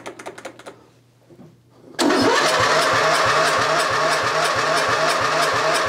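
Electric starter cranking a 1997 Briggs & Stratton 12.5 hp flathead mower engine. It cuts in suddenly about two seconds in and turns the engine over steadily, with about four compression pulses a second, but the engine does not fire. A few faint clicks come before it.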